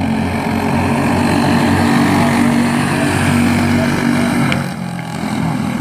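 Small racing engines running hard at speed, several tones overlapping. They grow loudest about two seconds in and ease off near the end.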